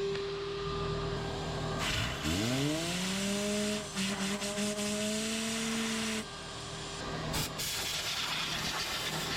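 Compressed-air gun blowing dust off refrigerator condenser coils in several hissing blasts, with a shop vacuum running underneath. About two seconds in, a motor spins up with a rising whine, runs steadily and stops near six seconds.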